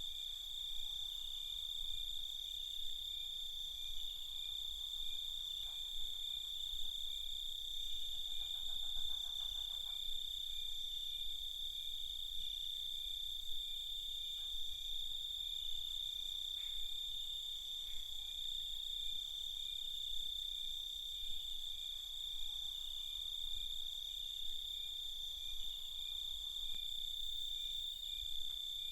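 Night chorus of crickets chirping steadily in a high continuous trill, with a faint rapid pulsing call about eight seconds in.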